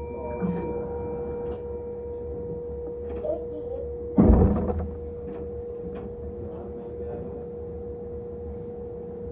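An electric train's sliding doors close with one loud thud about four seconds in, over the steady hum of the train standing at the platform. Faint voices are heard.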